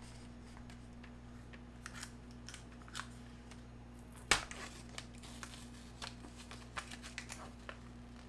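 Crinkling of a Brie cheese's paper wrapper and light clicks of its round box as fingers peel the wheel free, with one sharper click about four seconds in.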